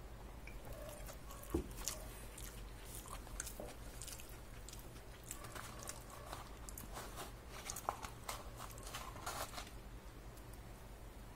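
French fries tipped out of a paper fry carton onto a wooden cutting board: paper rustling and a scatter of light taps as the fries drop, thickest in the second half. There is a single sharper knock about one and a half seconds in.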